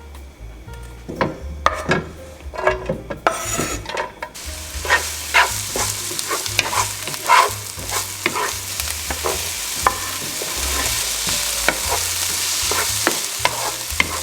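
A utensil knocks and clicks against a pan. About four seconds in, food meets hot oil and a steady sizzle starts, with a spatula tapping and scraping the pan as the food is stirred.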